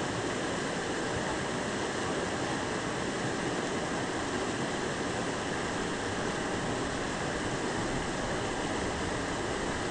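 Steady rush of flowing stream water over rocks, an even wash of noise that does not change.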